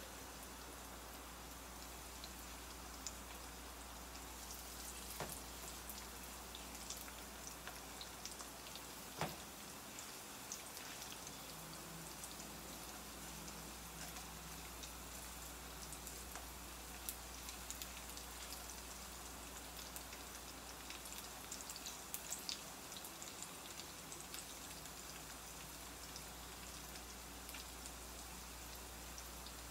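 Cornstarch-coated chicken pieces sizzling faintly in hot oil in a frying pan, with scattered light pops and clicks as more pieces are set in with metal tongs.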